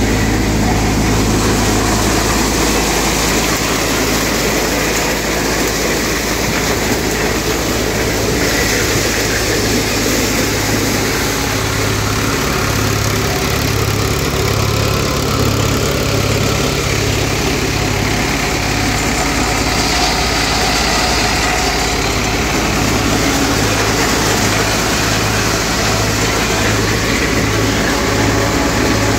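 Mahindra tractor's diesel engine running at a steady speed, driving a multicrop thresher shelling maize, with the thresher's steady mechanical din over it. From midway on, a low throb pulses about once a second.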